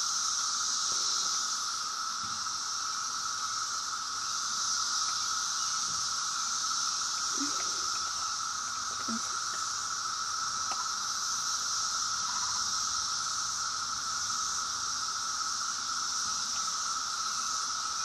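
Chorus of 17-year periodical cicadas (Brood X), many males calling together to attract mates in a steady, unbroken drone.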